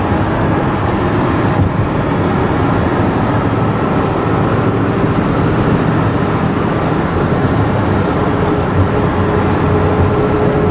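Steady car and road noise of driving in city traffic, a constant low rumble with a faint steady hum joining about four seconds in.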